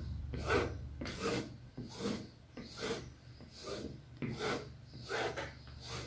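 Flexible plastic spatula scraping in repeated strokes across cotton canvas coated with wet priming paint, about eight rasping strokes at a little more than one a second. The spatula is pressing the primer into the weave of the canvas.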